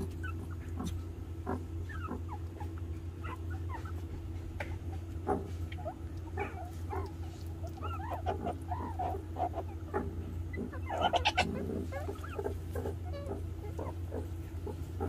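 Meerkats in a huddle giving many short squeaks and chirps, scattered through, with a denser, louder flurry about eleven seconds in, over a steady low hum.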